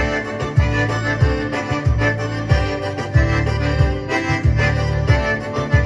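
Instrumental break in an accordion-led song: accordion playing held chords and melody over bass notes on a steady beat, about three beats every two seconds.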